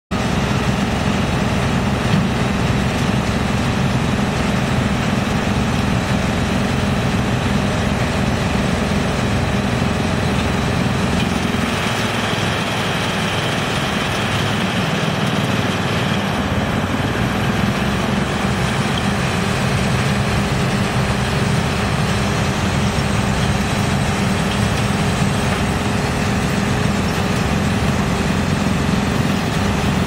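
Rotex YGX2113 industrial drum wood chipper, driven by a large electric motor, running steadily while chipping wood and throwing out a stream of chips: a loud, dense, even drone. Its low hum thins for a few seconds about twelve seconds in, then returns.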